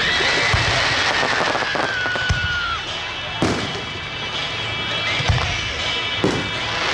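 Aerial firework shells bursting, about five booms at irregular intervals, the loudest about three and a half seconds in, over a constant crackling hiss. A long high whistle slides slowly down in pitch through the first three seconds.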